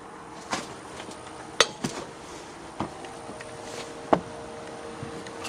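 A handful of sharp knocks and clicks, about five, irregularly spaced, over a faint steady hum.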